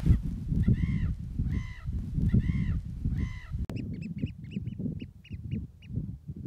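Wild birds calling over a low rumble of wind on the microphone: four evenly spaced calls that rise and fall in pitch, then, after a cut, a quick run of short high piping notes.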